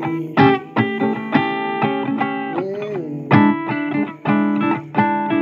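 Blues guitar from an old blues record: an instrumental break of plucked single notes and chords between sung lines, with a note bent in pitch about halfway through.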